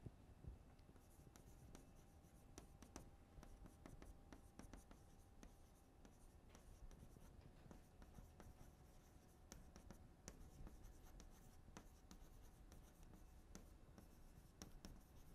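Near silence: room tone with faint, scattered scratching and light clicks.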